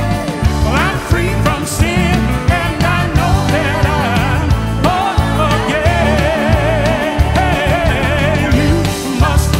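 Live gospel song: a man singing lead with wavering, sustained notes, backed by singers and a band with a steady bass and drum beat.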